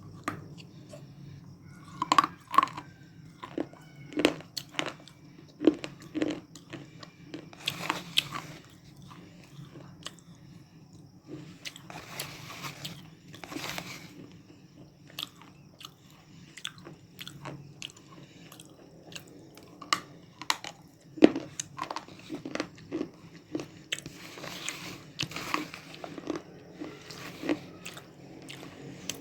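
Baked clay chips being bitten and chewed close to the microphone: repeated sharp, crunchy snaps, the loudest about 2, 4, 6, 8 and 21 seconds in, with longer stretches of gritty chewing between. A low steady hum runs underneath.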